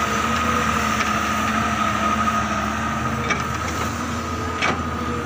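Volvo wheeled excavator's diesel engine running steadily while it digs, with a steady high whine over it and two short knocks in the second half.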